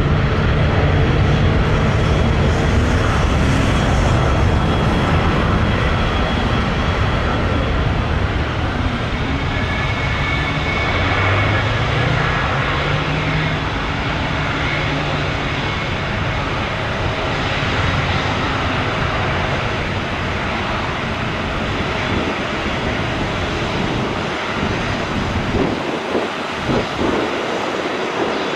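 Jet airliner's engines passing low overhead, a loud steady jet noise that slowly eases off, with a few short knocks near the end.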